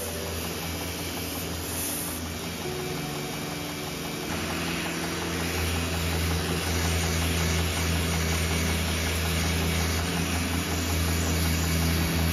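Belt grinder running with its abrasive belt sanding the wooden handle scales of a knife: a steady motor hum under a grinding hiss, growing louder about four seconds in.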